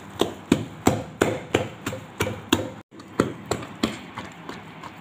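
A hand slapping and beating wet flour dough in a plastic bowl, about three strokes a second, the strokes growing softer near the end.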